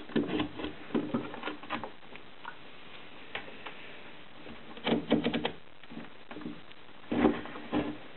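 Quick clicks and taps from plastic ignition coils and multimeter test leads being handled on a workbench. The clicks come in three bunches: at the start, about five seconds in and about seven seconds in, with a few single ticks between.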